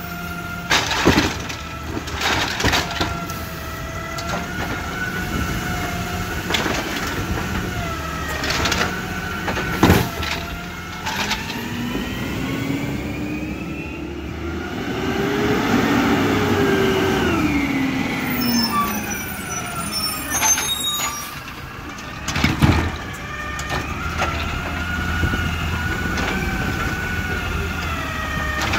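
CNG-powered Peterbilt 320 side-loader garbage truck with a Dadee Scorpion automated arm at work: the engine runs under the whine of the hydraulics, broken by several sharp knocks and bangs of the arm and carts. About halfway through, the engine rises in pitch for a few seconds and falls back.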